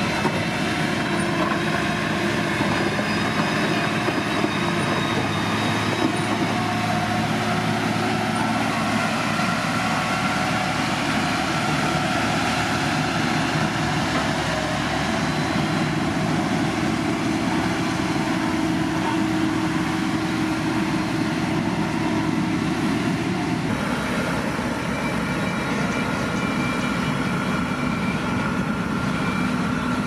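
Motor grader's diesel engine running steadily under working load. The engine tones change abruptly about six seconds before the end.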